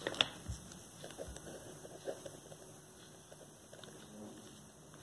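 Pen writing on paper: faint short scratching strokes, with a couple of sharper taps right at the start.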